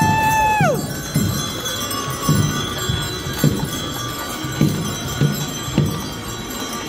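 A passing street parade: steady low thuds about twice a second, every other one stronger, over crowd noise. In the first second a held tone drops away and stops.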